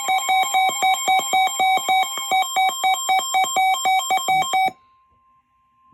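Weather-radio warning alarm: loud, rapid beeping that alternates between two pitches about four times a second over a steady alert tone near 1 kHz, signalling an incoming warning. The beeping cuts off abruptly near the end, leaving the steady tone faint for another moment.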